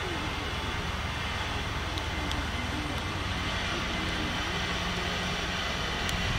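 Airplane flying over, a steady low rumble of jet noise, with faint distant voices underneath.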